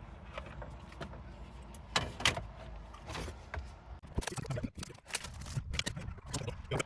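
Clicks, knocks and light rattles of stereo dash-kit parts and mounting brackets being handled and fitted, a few around two seconds in and a busier run of them from about four seconds on.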